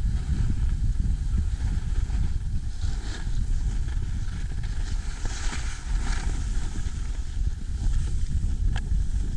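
Wind buffeting the microphone of a camera skiing downhill, a steady low rumble, with skis hissing over groomed snow in a couple of louder stretches around the middle.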